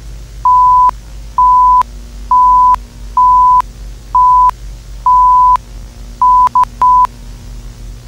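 A pure electronic beep tone of about 1 kHz: six beeps of roughly half a second each, then a quick run of three shorter beeps near the end, each starting and stopping with a click. A steady low hum and hiss run underneath.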